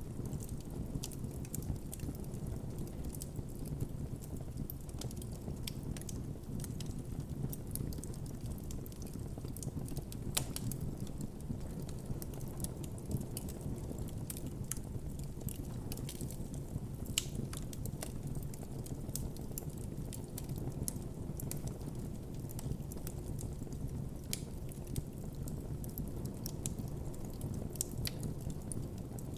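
Wood campfire crackling, with irregular sharp pops over a steady low rumble of the flames; a couple of louder pops come about 10 and 17 seconds in.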